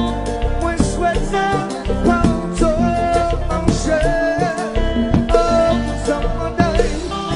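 Haitian kompa band playing live: drums, guitars and keyboards keeping a steady dance groove, with singing over it.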